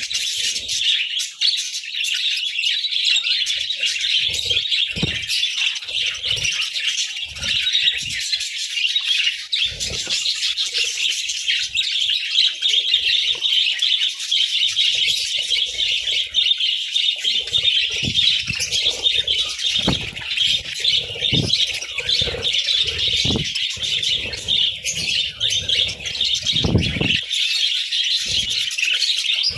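A flock of budgerigars chattering and chirping continuously, a dense, high warbling with no break, over occasional soft low thumps.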